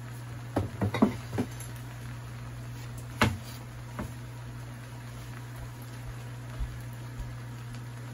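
A few light knocks and clicks of kitchen things: a quick cluster about a second in, then a single sharper knock a little after three seconds, over a steady low hum.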